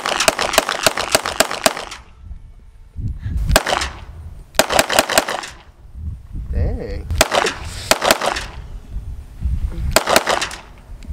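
Semi-automatic pistol fired in quick strings of sharp shots: a long string at first, then four shorter strings with pauses between them.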